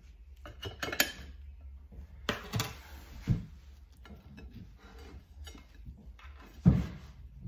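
Serrated knife cutting through a wholemeal-bread sandwich: scattered scrapes and light knocks, with a heavier thump near the end.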